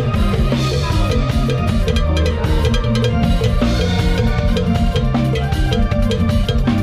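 Lam sing band music: a drum kit plays a fast, steady dance beat with bass and melody instruments over it.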